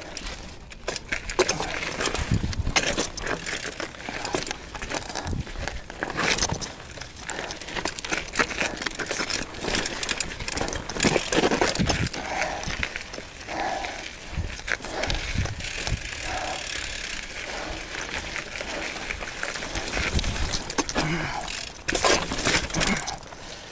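Mountain bike riding over a rocky trail: tyres crunching on gravel and stone, with the bike clattering and rattling over rocks in many quick knocks.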